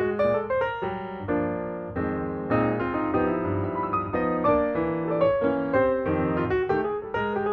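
Background piano music: a quick melody of short notes over held chords.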